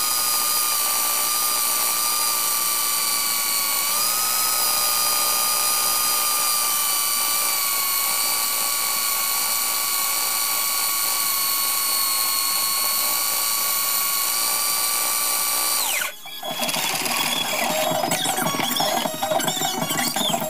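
A 1 hp electric drill driving a belt-driven homemade wood lathe, running steadily at speed with a high whine whose pitch steps up slightly about four seconds in. The whine cuts off suddenly about sixteen seconds in, and a rougher, uneven mechanical noise follows.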